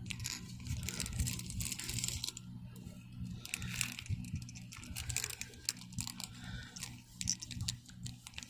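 Fishing-lure packaging handled by hand: scattered crinkles, rustles and small clicks, over a steady low hum.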